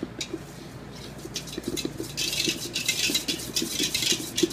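Hand scraping and stirring inside a stainless steel mixing bowl with sugar in it. A few scattered clicks give way, about halfway through, to a rapid, scratchy rubbing against the metal.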